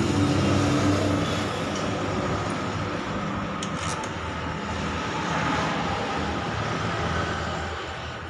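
Steady drone of vehicle engines nearby, with a few light metal clinks about three and a half to four seconds in as the stainless-steel muffler is fitted onto the motorcycle's exhaust.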